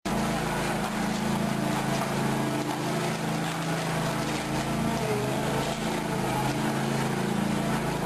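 Ride-on floor tile removal machine running steadily, its engine humming while the blade scrapes and cracks tiles loose from a concrete floor.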